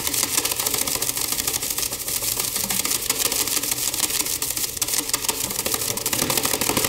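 Wide paintbrush beaten rapidly against a wooden easel leg to shake out the thinner: a fast, continuous clatter of slaps that stops suddenly at the end.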